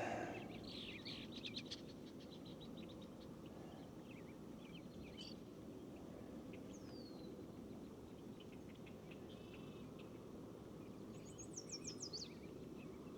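Faint birdsong: scattered high chirps and trills, with a short falling whistle in the middle and a quick series of falling notes near the end, over a low steady background noise.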